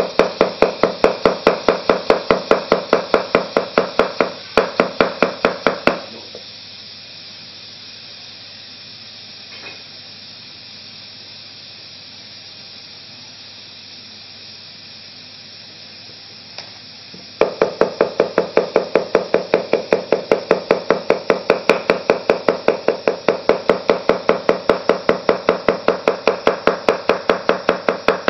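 Chinese cleaver chopping rapidly on a thick wooden chopping block, cutting potato into fine shreds with even strokes about five a second. The chopping stops about six seconds in, and only a couple of light taps are heard until it starts again, just as fast, about eleven seconds before the end.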